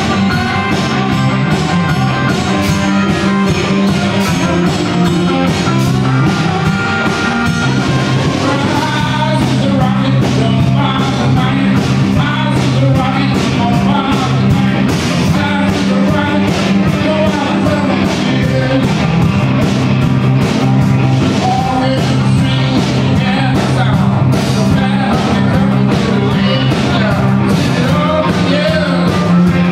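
A live rock band playing electric guitars over drums, loud and steady.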